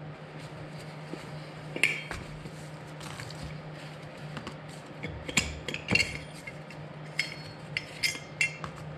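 Steel through bolts, nuts and a wrench clinking as the three through bolts of a Cleveland aircraft main wheel are undone and set down on a wooden board: a handful of sharp metallic clinks, the loudest about two seconds in and around six seconds in. A steady low hum runs underneath.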